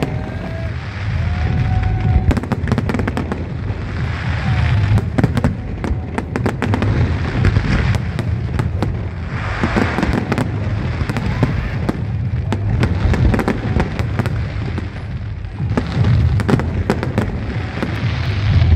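Aerial fireworks display: a continuous barrage of bangs and dense crackling over a steady low rumble, with a couple of whistles near the start.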